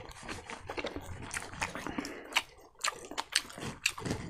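Close-miked wet chewing and lip-smacking of a mouthful of pork and rice: a quick, uneven run of sharp clicks and smacks, with a short pause a little past halfway.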